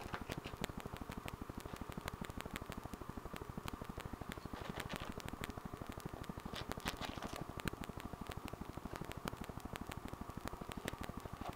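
Steady crackling static from the camera's own recording noise, with faint scattered clicks and a few short scratchy rustles about halfway through.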